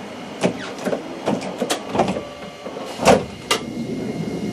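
A string of sharp clicks and knocks, about eight of them, inside a Sapporo streetcar's cab area. The loudest comes about three seconds in.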